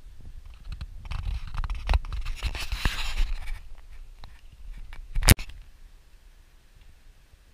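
Scraping and rubbing handling noise on a handheld camera's microphone over a low rumble, with one sharp knock about five seconds in.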